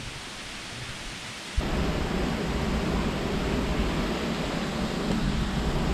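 Steady roar of a waterfall's rushing water, which becomes suddenly louder and deeper about one and a half seconds in.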